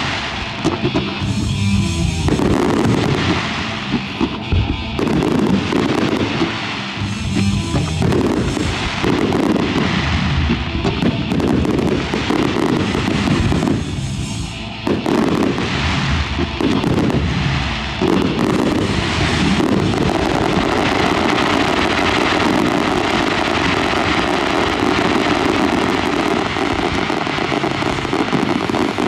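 Fireworks shells bursting in quick succession over a music soundtrack. From about twenty seconds in, the bursts merge into a dense, continuous barrage.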